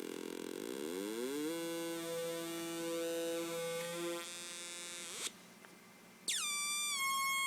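Dual Atari Punk Console (556 timer square-wave noise synth) droning buzzy electronic tones. The pitch glides up about a second in and holds, then sweeps up and cuts out for about a second. It comes back with a tone that falls and settles as the knobs are turned.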